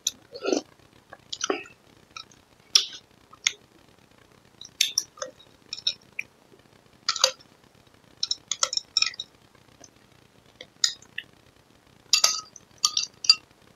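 A metal spoon clinking against glass bowls while scooping up lod, green pandan noodle jelly: scattered light, sharp clinks, several bunched together near the end. A couple of softer slurping eating sounds come near the start.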